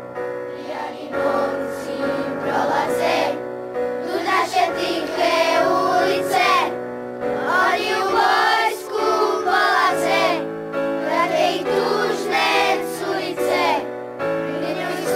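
Boys' choir singing a melody in unison over held keyboard chords; the voices come in about a second in.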